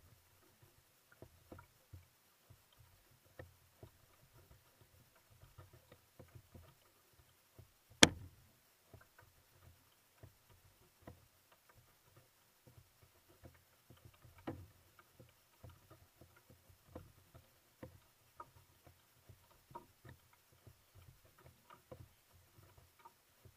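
Quiet scattered ticks and knocks of a kayak being paddled, picked up through a camera mounted on the boat's deck, with one sharp knock about eight seconds in and a smaller one about six seconds later.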